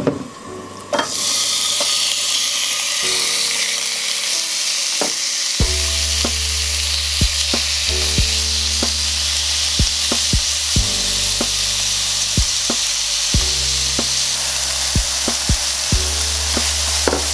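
Cubes of beef sirloin sizzling as they sear in hot olive oil in a frying pan. The sizzle starts about a second in, and from a few seconds later wooden chopsticks tick against the pan at irregular moments as the meat is turned.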